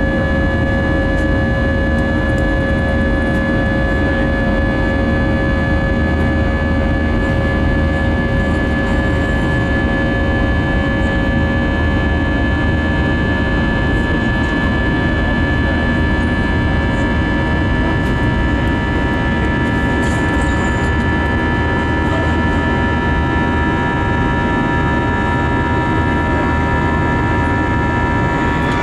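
Airbus A320's IAE V2500 turbofan engines heard from inside the cabin while climbing out after takeoff: a steady roar with several held whining tones over it.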